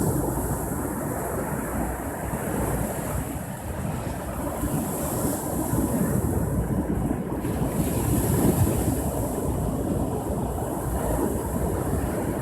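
Ocean surf breaking and washing on the shore, a steady rush that swells louder about halfway through and again a little later, with wind buffeting the microphone.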